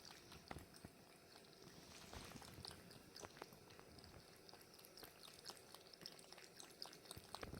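Faint, irregular soft ticks of a cat lapping water.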